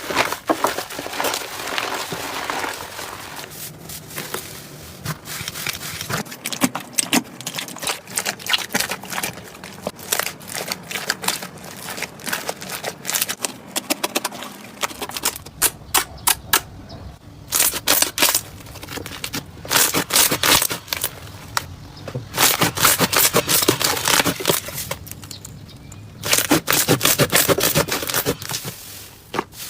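Slime being squeezed, poked and stretched by hand, giving rapid crackling and popping clicks in spells with short pauses.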